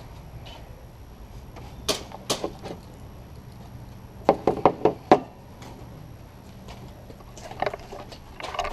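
A few sharp knocks or clicks: two about two seconds in, then a quick run of four or five a little after four seconds, with fainter rattling near the end.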